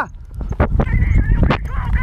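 Hunting dogs yelping high and wavering from about a second in, over a heavy low rumble, with two sharp knocks.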